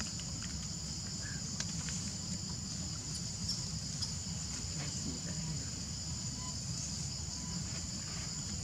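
Steady high-pitched insect chorus, an unbroken shrill drone, over a low rumble, with a few faint clicks scattered through it.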